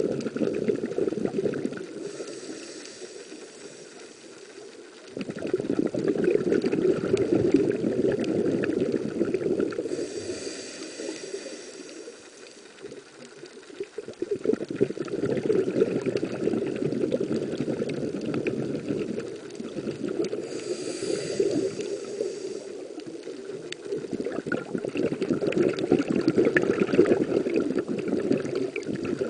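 A scuba diver breathing through a regulator underwater. There are three breath cycles: each begins with a short hissing inhale, followed by several seconds of bubbling as the diver exhales.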